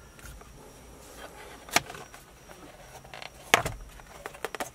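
Handling noise: two sharp clicks about two seconds apart, then a quick run of lighter clicks near the end.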